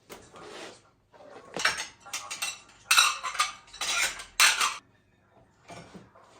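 Cutlery and dishes clattering and clinking in a kitchen, in a busy run of strokes from about a second and a half in until near the end, loudest around the middle.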